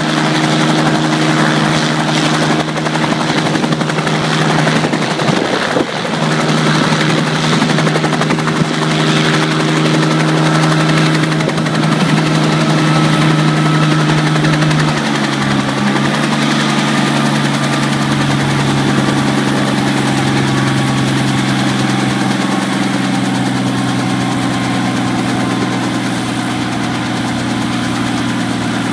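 1966 Bell 47J-2A Ranger helicopter running on the ground, its piston engine and main rotor turning with a steady drone. About halfway through, the engine note steps down to a lower, steady pitch, settling toward idle after landing.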